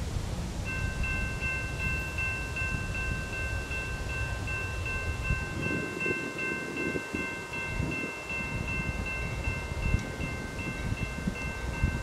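An electronic railroad crossing bell starts ringing about a second in and keeps up a rapid, even ring. Beneath it is the low rumble of an approaching diesel-hauled freight train, with some wind.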